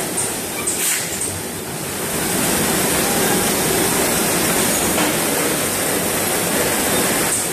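An automatic horizontal packing line for mooncakes in trays running steadily: its conveyor and wrapping machine make a continuous mechanical noise, with a couple of faint clicks.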